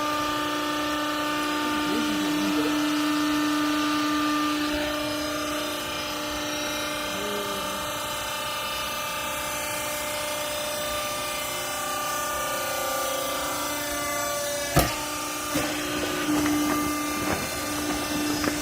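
Cleaning-rag baling machine's motor and hydraulic pump running with a steady hum, with a sharp knock about fifteen seconds in and a few lighter knocks after it.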